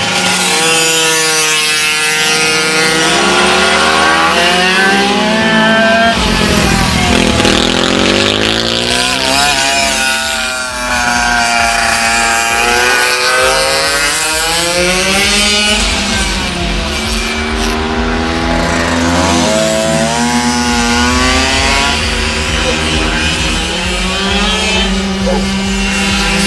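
Several racing motorcycle engines running together on a circuit, revving up and down so that their overlapping notes rise and fall as the bikes come through the corners and pass.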